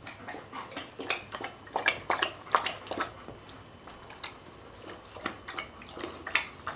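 Huskita puppy lapping water from her bowl: an uneven run of short wet laps and splashes, about two to three a second.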